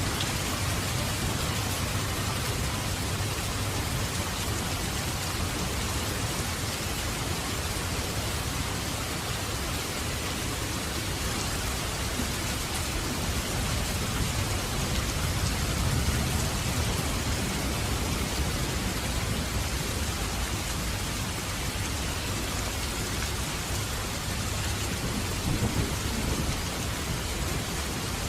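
Heavy rain falling steadily, a dense even hiss of many raindrops, with a low rumble that swells up in the middle and fades again.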